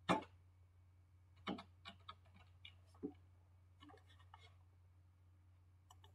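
Faint, irregular clicks and taps, the loudest a sharp knock right at the start and a quick cluster about four seconds in, over a steady low electrical hum.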